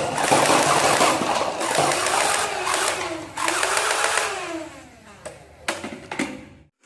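Toy gun's electronic sound effect: a rapid burst of machine-gun fire, then a wavering tone that fades out.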